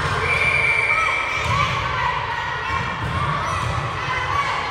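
Echoing din of an indoor volleyball gym: chatter of players and spectators, with balls thudding on the floor. A short high squeak is heard near the start.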